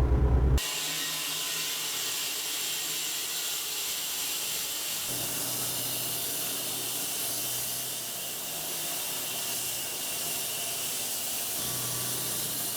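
A low engine rumble cuts off sharply about half a second in and gives way to a steady high hiss.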